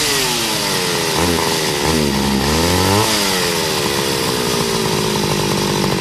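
Chainsaw engine revving: its pitch drops and climbs a couple of times in the first few seconds, then settles into a steady, lower-pitched run.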